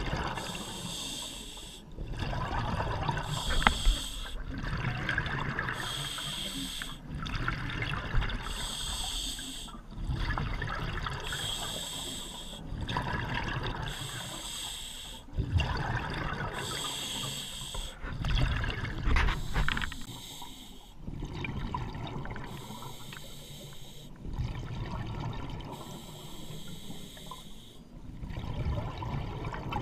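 Scuba diver breathing through a regulator underwater: inhales and bubbling exhales in a slow, steady rhythm, about one breath every four to five seconds.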